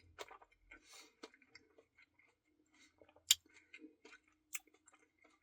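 Close-up mouth sounds of someone chewing a soft-serve Blizzard with Reese's and cookie dough pieces: soft, wet chewing with scattered small clicks, the sharpest about three seconds in.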